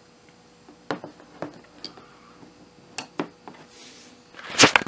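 Handling noise: scattered light clicks and knocks of a smartphone and the objects around it being moved on a table, with a louder clatter near the end.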